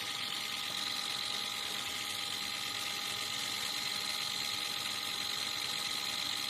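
Mini USB ultrasonic turbo washing machine running steadily: an even electric hum with several high held tones over a hiss.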